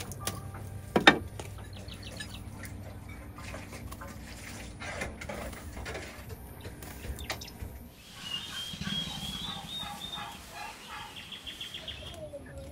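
A sharp knock about a second in and scattered clicks as the charcoal in a clay stove is tended with a wooden stick. From about eight seconds in, domestic fowl give a rapid, rattling run of calls for several seconds.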